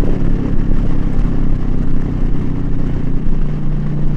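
Big V-twin bagger motorcycle engine running under way with wind rushing over the microphone. The engine note changes about three seconds in as the throttle eases through a turn.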